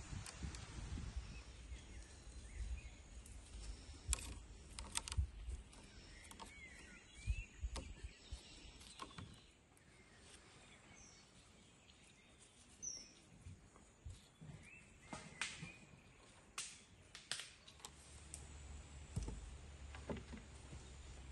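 Soft taps, clicks and rustles as hands handle fresh flowers in a wicker basket and a wooden cutting board on a wooden table. A few bird chirps come in between.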